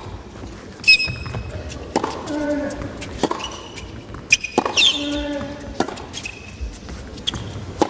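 Tennis rally on an indoor hard court: sharp racket strikes and ball bounces about every second, with short high-pitched squeaks of tennis shoes on the court surface between them.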